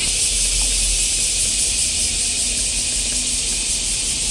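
Steady, high-pitched hiss of background noise, even throughout.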